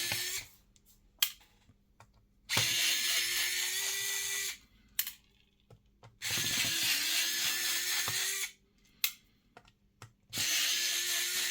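Electric precision screwdriver running in short bursts of about two seconds, four runs with a slight rise in pitch during each, as it backs out the laptop's hinge screws. Small clicks are heard between the runs.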